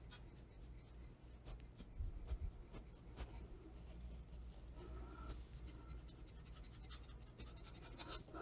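Faint handling noises: light clicks and scratches of a tool against the tile, over a low steady hum.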